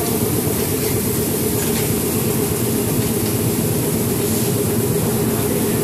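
Seed-processing machinery running with a steady, dense mechanical drone, plus a few faint knocks.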